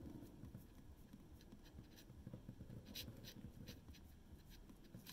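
Near silence with faint, scattered light clicks and scratching: small handling noises from a twist-up eyebrow pencil being turned and handled.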